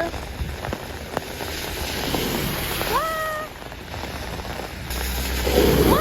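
Steady rain, with two short pitched cries that rise and then hold for about half a second, about three seconds in and again near the end.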